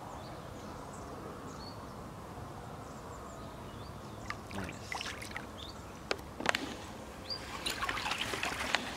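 Water lapping and trickling against a wet mat as a mirror carp is released into a lake. From about halfway come a series of small splashes and sloshes as the fish slips into the water and swims off.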